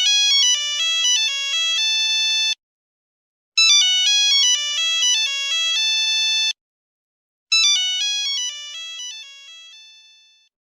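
Phone ringtone: a short, bright electronic melody with several notes sounding at once, played three times with a pause of about a second between repeats. The last repeat fades out.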